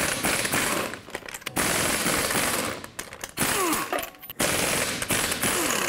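Half-inch impact wrench with a 22 mm socket hammering lug nuts off a truck wheel, in four rattling bursts with short pauses between them.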